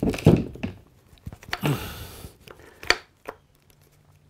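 Knocks, clatter and a brief scrape of a submersible pump's metal casing and broken hard-plastic impeller pieces being handled and cleared out, ending in two sharp clicks about three seconds in.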